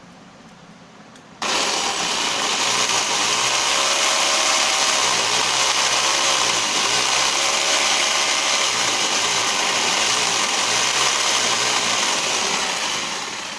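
Electric drill with a 14 mm bit boring into a plastered wall. The motor starts suddenly about a second and a half in and runs loud and steady, its pitch wavering as the bit bites, then eases off near the end.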